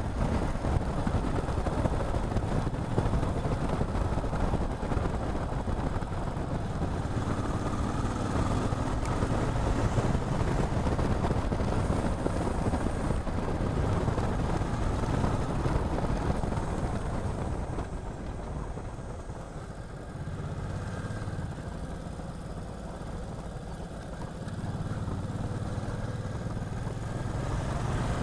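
Motorcycle running along a road, engine and riding noise steady; it drops quieter for several seconds past the middle, then rises again near the end.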